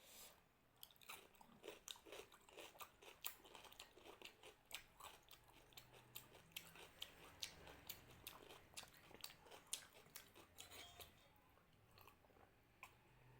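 Faint, close-up chewing of a mouthful of rice and mutton curry, with many quick wet mouth clicks and smacks that thin out near the end.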